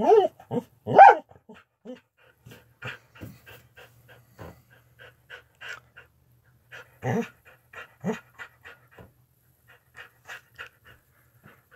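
Dog panting quickly, about three breaths a second, with two short pitched vocal sounds in the first second and a couple of louder, lower grunts about two-thirds of the way through.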